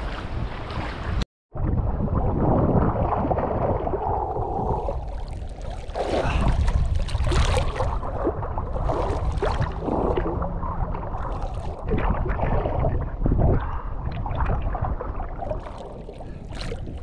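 Lake water splashing and sloshing close to the microphone during a swim, with wind rumbling on the microphone. The sound cuts out for a moment about a second in.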